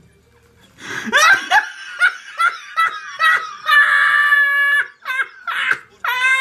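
Loud, high-pitched laughter that starts about a second in, coming in quick gasping bursts, with two long squealing shrieks of laughter about four and six seconds in.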